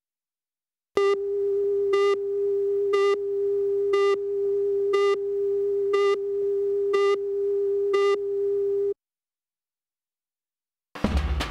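Steady test tone of a video countdown leader with a short tick once a second, eight in all; it stops suddenly, and after about two seconds of silence music with drums starts near the end.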